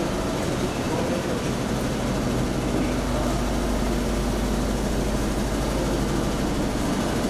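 Steady low drone of a running motor, holding an even pitch and level throughout.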